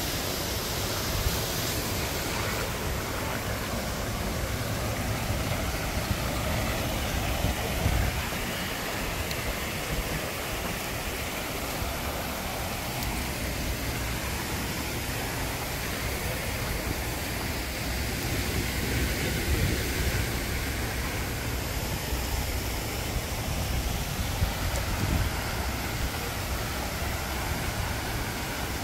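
Steady wind noise buffeting the microphone, an irregular low rumble under a constant rushing hiss.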